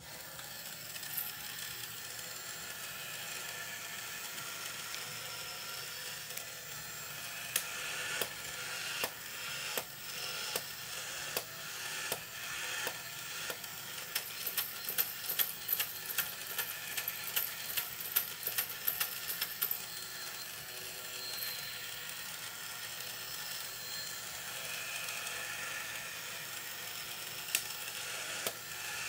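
Nomura Charley Weaver Bartender battery-operated tin toy running: its small electric motor and gears whir steadily, with quick mechanical clicks and rattles through the middle as the figure works through its moves.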